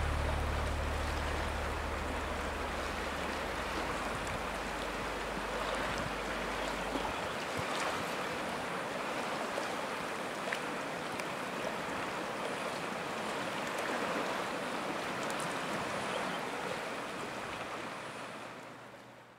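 Steady rush of running water with faint ticks and small splashes. A low held note, left over from the film's music, dies away in the first seven seconds, and the water sound fades out at the end.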